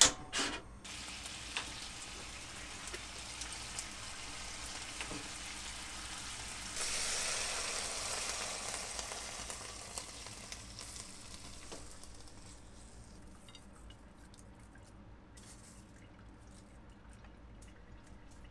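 Onion and ketchup–Worcestershire sauce sizzling hot in a frying pan. A sharp knock comes at the start. The hiss swells louder for a couple of seconds about seven seconds in, then slowly dies down.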